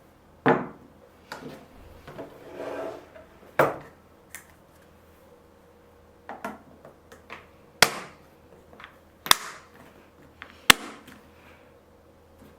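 Kitchen preparation sounds from radish being prepared: irregular knocks and sharp clicks, a few of them loud, with a scraping rub a little over two seconds in.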